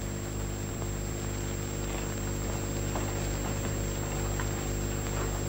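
Steady electrical hum with hiss, the background noise of an old film soundtrack, with a few faint ticks.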